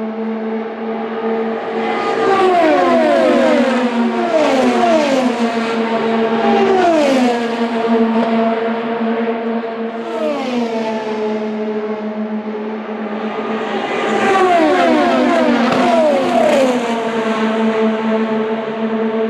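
IndyCars with 2.2-litre twin-turbo V6 engines passing at speed, each engine note dropping in pitch as it goes by. A tight group of several cars goes past, then single cars, then another group near the end, over a steady droning tone.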